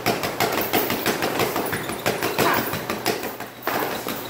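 Boxing gloves striking focus mitts in quick runs of punches, each a sharp slap, with a brief lull near the end, over a steady low hum.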